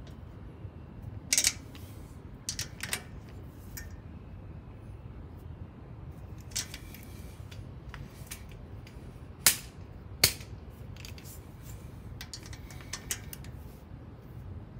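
Scattered sharp metallic clicks and clinks from a ratchet and socket being fitted and turned on the breather bolts of a Harley-Davidson engine, the two loudest clicks about a second apart near the middle.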